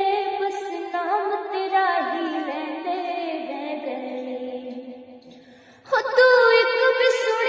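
Music with singing, a slow sad ringtone melody; it fades almost away about five seconds in, then comes back loudly about a second later.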